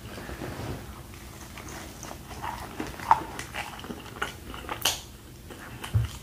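Close-miked mouth sounds of a person biting and chewing a Popeyes biscuit topped with hot sauce: scattered short wet clicks and smacks, with a couple of sharper ones about three and five seconds in.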